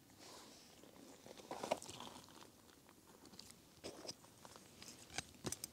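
Faint, scattered rustles and small clicks of hands handling fishing line and terminal tackle, with a few sharper clicks near the end.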